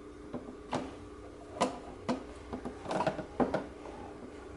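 Hard plastic toy pieces clicking and knocking as they are handled and put into a toy refrigerator's drawer: a few sharp separate clicks, with a quick run of them about three seconds in.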